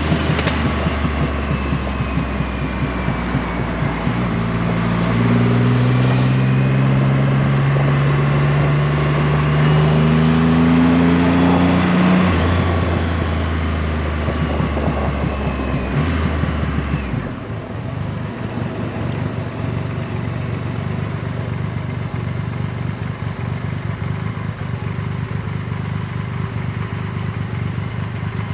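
Triumph Rocket 3 R's 2,458 cc inline-three engine heard from the saddle, its pitch rising under throttle over the first dozen seconds with a gear change about twelve seconds in. Around seventeen seconds the throttle closes and the engine drops to a quieter, rougher running note, with wind noise underneath.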